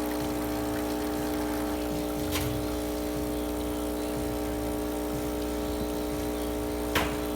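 DeLonghi Magnifica espresso machine's vibratory pump running steadily under pressure while pulling a full shot, a constant buzzing hum. A light click a little after two seconds in and a sharper click near the end.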